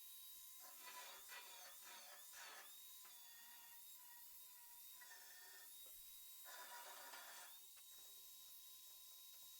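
Near silence: a faint steady high whine, with a few brief faint patches of hiss in the first few seconds and again around the middle.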